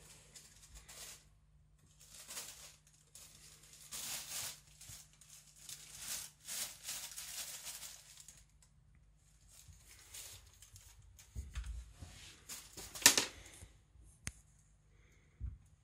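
Thin plastic shopping bag rustling and crinkling in irregular bursts as a cat noses and pulls at it, with the loudest rustle near the end.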